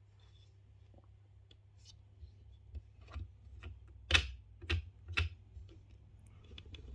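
A series of sharp knocks and clicks from objects being handled and set down: a few light ones, then three louder knocks about four to five seconds in.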